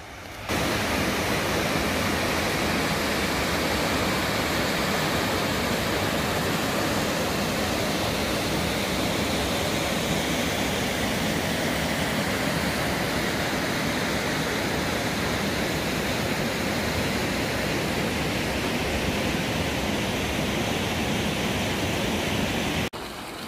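Steady rush of water from a partly frozen mountain creek flowing over stones, cutting in suddenly just after the start and stopping abruptly near the end.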